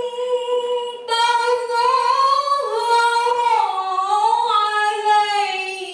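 A young woman's voice reciting the Qur'an in melodic qira'a style into a microphone: long held, ornamented notes with a short breath about a second in, the pitch stepping slowly downward.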